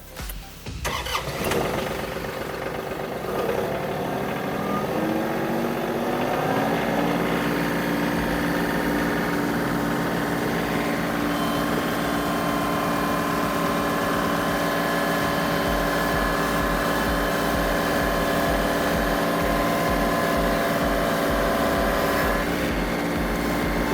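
Four-wheel-drive tractor engine revving up over the first several seconds, then held at high revs under load as it tries to climb a steep, muddy hill, without making it up.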